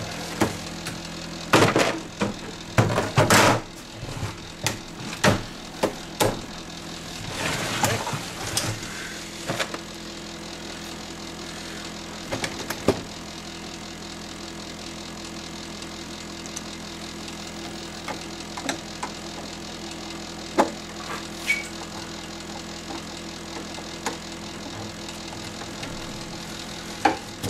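Plastic rear housing of a CRT monitor being fitted back over the tube: a run of knocks and clatters in the first ten seconds, then scattered clicks as screws are driven by hand. A steady low hum runs underneath.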